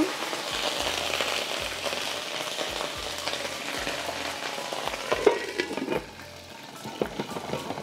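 Ginger-garlic paste sizzling and spattering in hot pomace olive oil in a frying pan, stirred with a spoon. The crackle dies down somewhat in the last couple of seconds.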